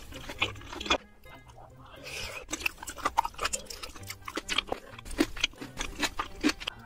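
Close-miked mouth sounds of a person eating spicy seafood stew: wet chewing, lip smacks and slurps of noodles and broth, many short sharp clicks in quick succession.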